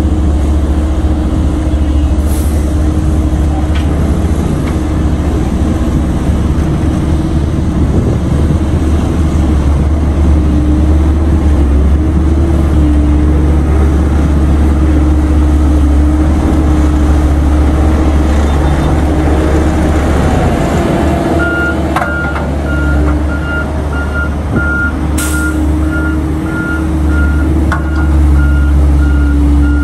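Heavy diesel engines of a dump truck and a road roller running steadily with a deep rumble. About two-thirds of the way in a reversing alarm starts beeping at an even pace and keeps on, and a short hiss of air brakes is heard.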